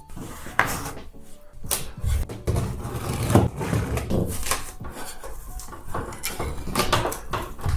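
Old ceiling tiles being pried and pulled down with a scraper: irregular scrapes, cracks and knocks.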